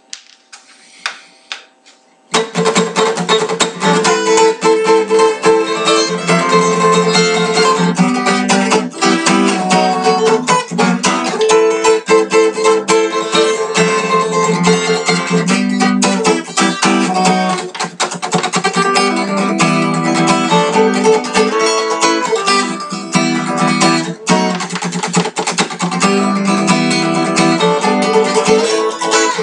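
Acoustic guitar played solo, starting about two seconds in, with quick picked and strummed chords in a progressive, math-rock style.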